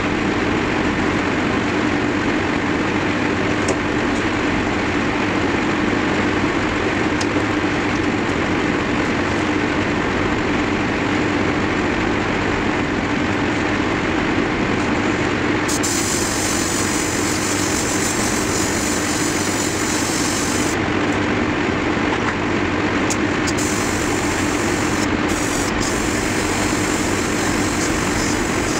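An airbrush air compressor runs with a steady hum. In the second half, a higher hiss of air comes on and cuts off a few times as the airbrush trigger is worked.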